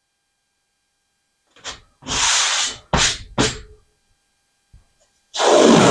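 Blue painter's tape being pulled off the roll in several short ripping pulls, starting about a second and a half in. The longest pulls come about two seconds in and near the end.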